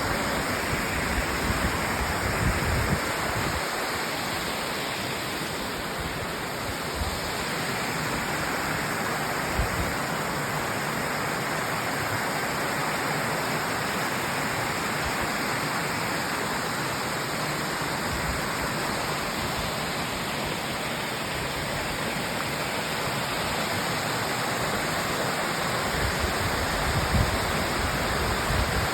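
Steady rushing water, an even, continuous wash of noise, with a few brief low rumbles.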